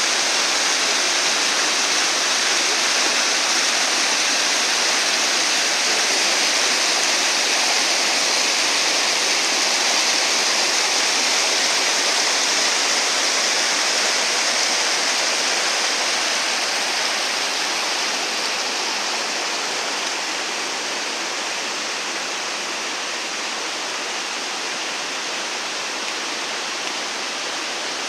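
A mountain stream rushing steadily in a continuous hiss of running water, easing off slightly a little past halfway.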